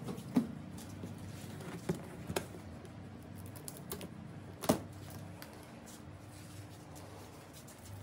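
Scattered clicks and light knocks of a plastic packing strap being handled and cut on a cardboard carton, with the sharpest click a little past halfway.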